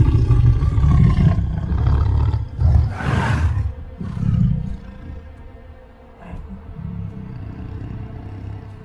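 A tiger growling deeply at close range, loudest over the first three and a half seconds with a harsher breathy burst about three seconds in, then dropping to quieter, broken rumbling breaths.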